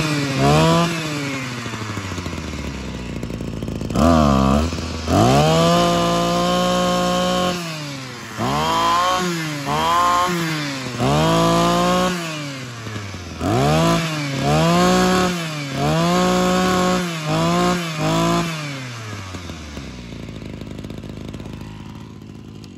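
Ryobi EKK-2630 26cc two-stroke brush cutter engine on a test run, revved again and again with throttle blips, a few held high for a second or two, and dropping back to idle between them. It settles to a steady idle near the end.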